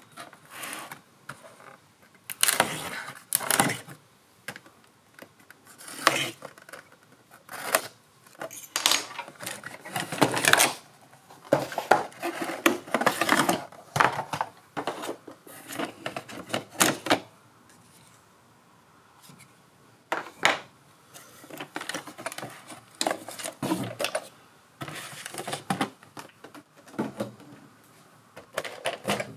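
Cardboard box and packing being handled as an RC buggy is unpacked: irregular rustling, scraping and light clatter in bursts, with short quiet gaps.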